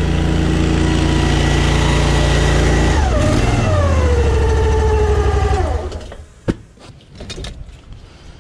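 Honda petrol engine of a drain jetter running steadily, then slowing down about three seconds in, its pitch falling until it stops about three seconds later: the engine being shut off. A sharp knock and light clatter follow.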